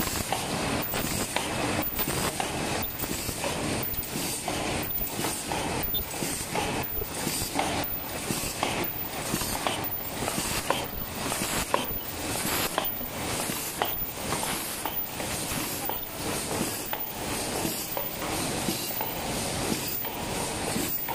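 Paper cup forming machine running at production speed, a steady mechanical din with an even, repeating beat from its cycling turret and forming stations.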